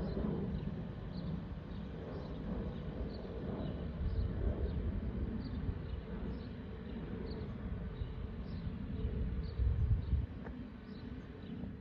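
Airbus A319 jet passing out of sight overhead: a low rumble carrying a faint steady whistle, the FOPP whistle from the fuel over-pressure protector vents under the wings, which weakens in the second half. Small high chirps are scattered throughout.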